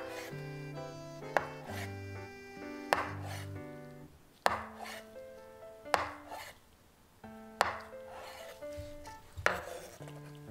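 Kitchen knife slicing down through a block of tofu and knocking on a wooden cutting board, six strokes about every one and a half seconds.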